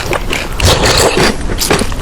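Close-miked crunchy chewing: a dense run of crunches and crackles.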